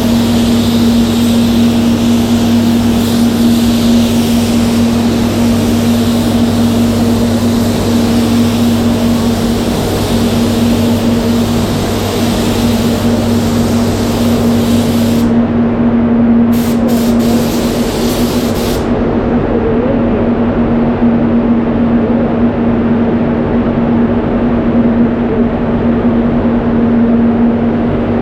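Satajet X5500 CC spray gun hissing with compressed air as clear coat is sprayed; the trigger is let go about 15 seconds in, followed by a few short bursts, then the hiss stops. Under it a spray booth's extraction fans run with a steady hum throughout.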